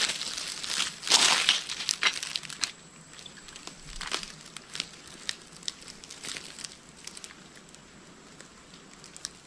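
Rustling and crunching in dry forest-floor leaves and gear handling for the first few seconds as the shooting stick is set and the rifle raised, then quieter with scattered faint ticks and clicks while the rifle is held steady on the stick.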